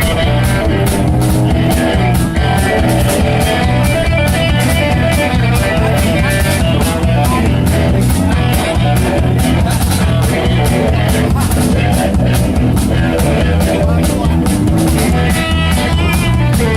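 Rock band playing: guitar over a drum kit keeping a steady beat.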